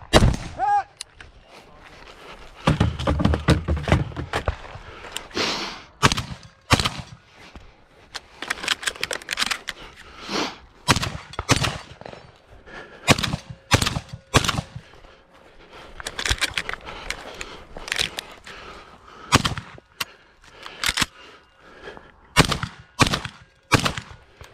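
Rifle fire at the start, then a long string of shotgun shots fired at an irregular pace, roughly half a second to a second apart in runs, with short gaps between the runs.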